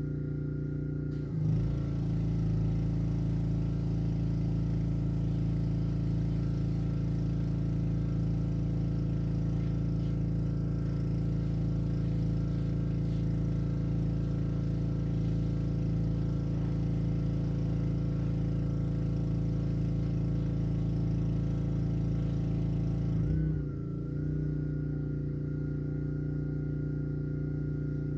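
Honda engine of a Black Max pressure washer running steadily. About a second in, a hiss of spraying water joins and the engine note changes as it takes the load of the spray gun. The spray stops about five seconds before the end and the engine runs on unloaded.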